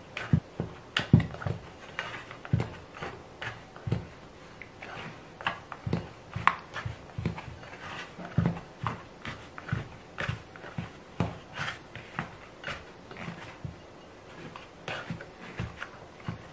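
Plastic dough scraper scraping and knocking against a glass mixing bowl while wet, shaggy bread dough is mixed and pressed, with soft squelches of the dough. Short, irregular strokes, about one or two a second.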